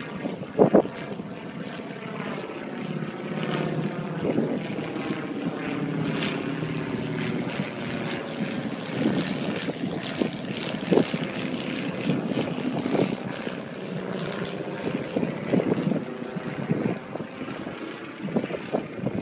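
Stearman biplane's radial engine and propeller droning steadily overhead during a fly-by, its pitch drifting as it passes. A few short thumps break in, loudest about a second in and about eleven seconds in.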